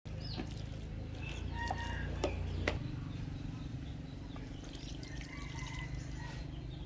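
Puppies eating rice with soup: wet lapping and sharp chewing clicks over a steady low hum, with a few short high calls in the first half.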